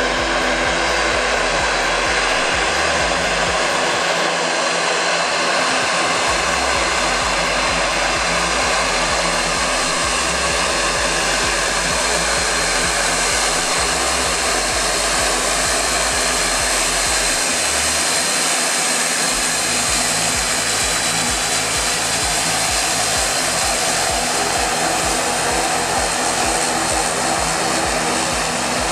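Dornier 328-110 turboprop airliner taxiing at close range, its two propeller engines at low taxi power. It is a steady, loud propeller drone over a rushing whoosh, with several held tones running through it.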